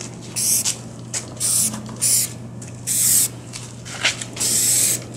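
Rust-Oleum camouflage aerosol spray paint can hissing out in about five short squirts, each well under a second, spaced roughly a second apart, as spots of paint are dabbed onto a plastic case.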